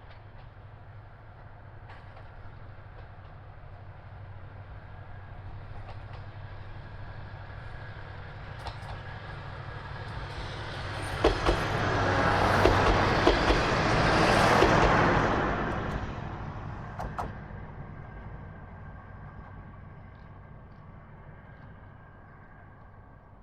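Diesel railcar passing: its engine hum builds to a peak and fades away, with sharp clicks of the wheels over rail joints as it goes by.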